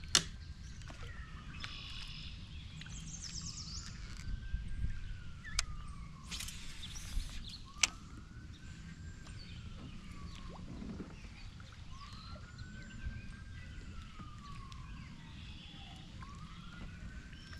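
A faint siren wailing, its pitch slowly rising and falling about every four seconds. A few sharp knocks stand out above it near the start and in the middle, with short bird chirps now and then.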